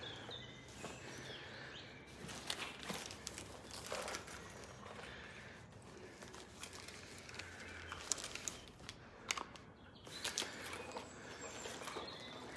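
Footsteps and rustling handling noise with scattered short clicks and knocks, over faint bird chirps.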